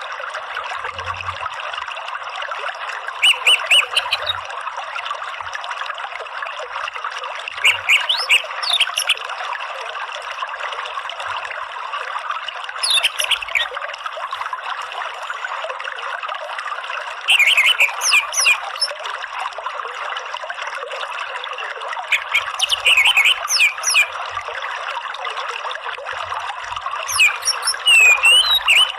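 Orange-headed thrush (anis merah) giving short bursts of rapid twittering 'ngeriwik' notes, six in all, about every five seconds, over a steady background of running stream water.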